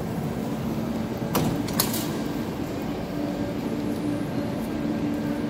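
Metro train standing at a station platform with its doors open, its steady running noise in the background. A few sharp knocks come about one and a half to two seconds in, and a steady low hum sets in from about three seconds.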